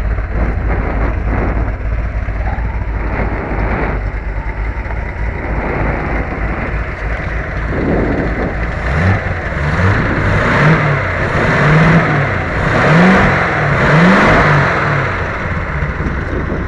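Triumph TR7 V8 engine running after six years without being run. It idles steadily at first, then from about halfway through it is revved up and down several times in quick succession before settling back to idle.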